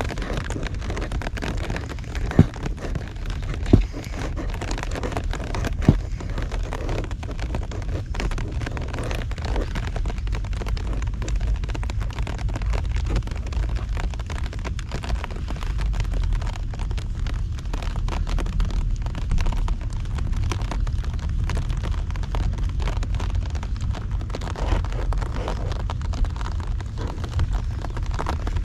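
Heavy rain falling steadily, with a deep steady rumble underneath and three sharp taps in the first six seconds.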